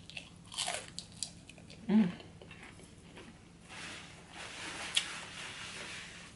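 Chewing breaded fried shrimp: scattered crunches and wet mouth sounds, with a short hum about two seconds in.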